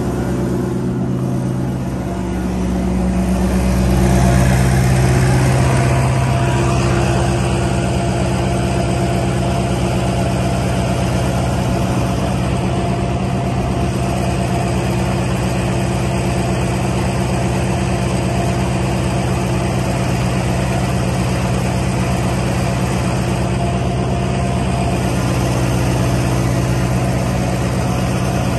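Deere diesel engine of a cable puller running steadily, its speed picking up a few seconds in and then holding.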